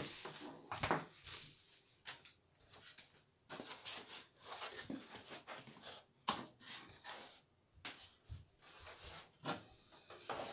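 Packaging being handled: irregular rustles, scrapes and light knocks as a cardboard box with foam inserts and plastic wrapping are moved about.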